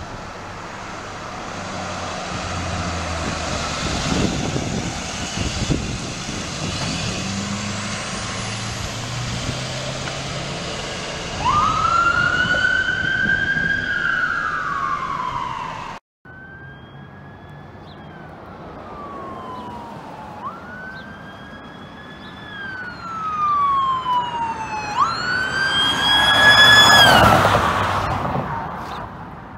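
Emergency vehicle siren wailing in slow rising-and-falling sweeps, with road and engine noise before it. After an abrupt cut, another siren wail grows louder, is loudest near the end as the vehicle passes, then drops in pitch and fades.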